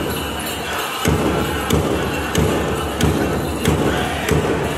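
Powwow drum group beating a large drum in a steady beat, about one and a half beats a second, with singing voices over it. The drumbeat breaks briefly just before a second in, then resumes.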